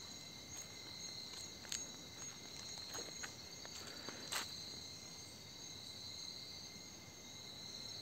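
Steady high-pitched chorus of night insects such as crickets, with a few faint clicks about two, three and four seconds in.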